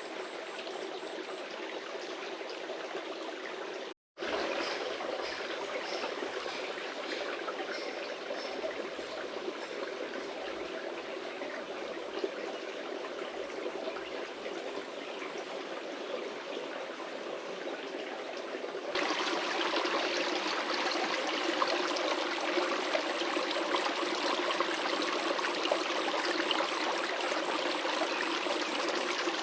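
Steady rushing water, like a flowing stream. It drops out for an instant about four seconds in and is louder from about nineteen seconds on.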